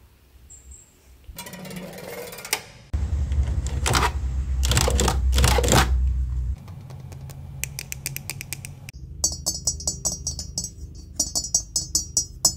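Hands tapping, rubbing and clicking on the bodywork and steel wheel of a Citroën C15 van. A low rumble runs for a few seconds about three seconds in and cuts off suddenly. It gives way to quick, evenly spaced clicks.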